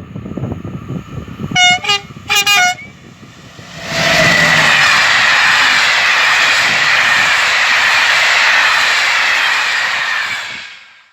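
Train horn sounding two short blasts, followed by a train passing at speed with a loud, steady rushing noise that cuts off near the end.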